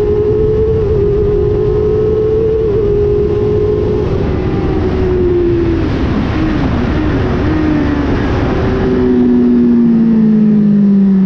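Motorcycle engine running at high revs with wind rush. About halfway through the revs drop as the bike slows for a corner, then settle to a lower steady note through the turn.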